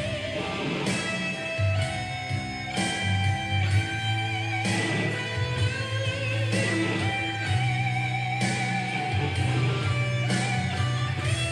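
Godin Redline HB electric guitar played lead-style after a pro setup: single notes and chords that change about once a second, some held with a wavering vibrato.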